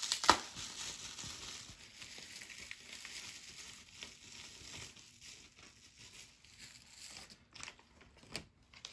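Plastic packaging bag crinkling and rustling as parts are taken out, with a sharp click about a third of a second in and a few separate clicks near the end.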